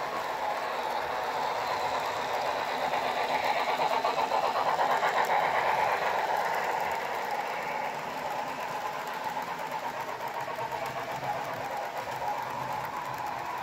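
HO-scale model freight train running past on its track, its wheels rolling on the rails with a fast, fine rattle that swells to its loudest around five seconds in and then eases off.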